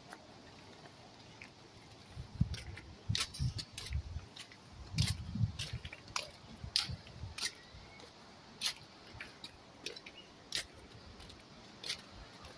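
Footsteps on stone paving: irregular light clicks and soft thumps, busiest in the first half and sparser near the end.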